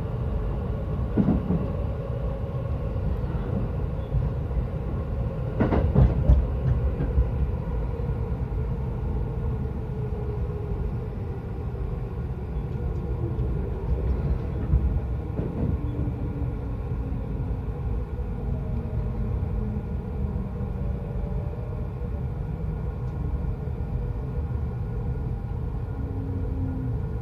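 Yokosuka Line electric commuter train heard from inside the carriage: a steady rumble of wheels on rail, with sharp knocks about a second in and around six seconds in. A motor whine falls slowly in pitch as the train slows for a station stop.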